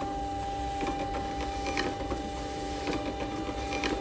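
Thermal label printer feeding and printing an A6 shipping label, with a steady whine from its paper-feed motor. Faint clicks come about once a second.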